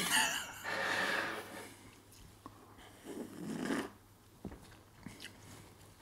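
A person sipping a latte from a ceramic cup and breathing out through the nose, with a few faint taps in between.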